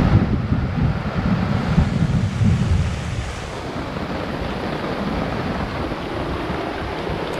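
Steady rain, with gusts of wind buffeting the microphone as a heavy low rumble for the first three seconds or so.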